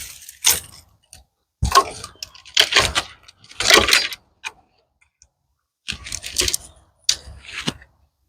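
Dry pecan branches and twigs being handled and piled, in about five short bursts of woody clattering and crackling with sharp clicks.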